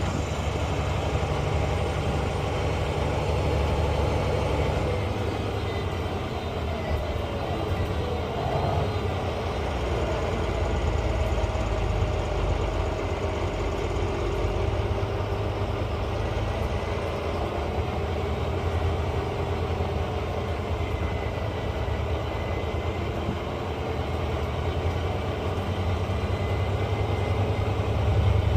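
Volvo B9 bus's turbocharged diesel engine running, its low rumble steady with pitch rising and falling a little in the middle, and the turbo whistling over it.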